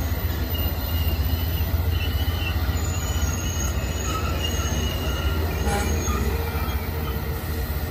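Amtrak Coast Starlight passenger train's cars rolling past close by: a steady low rumble of wheels on rail, with thin high-pitched wheel squeal coming and going over it.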